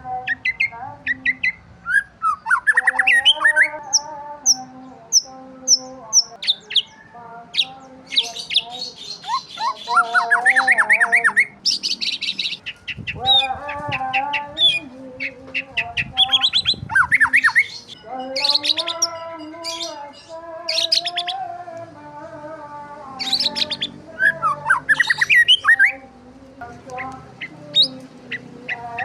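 Several birds chirping and calling at once, overlapping: quick high tweets, runs of rapidly repeated notes and rising trills, mixed with harsher squawking calls.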